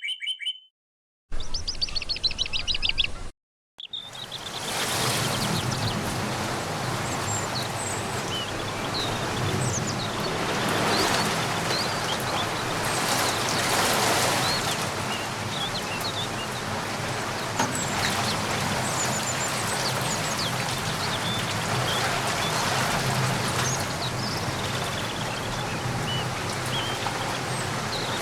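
Steady rain falling, with faint, scattered bird chirps over it. It begins about four seconds in, after a few short bursts of rapidly repeated high chirps broken by silences.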